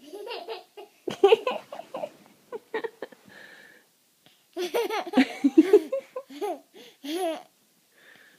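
A small child laughing in high-pitched, choppy bursts broken up by hiccups, in two bouts with a short pause between them.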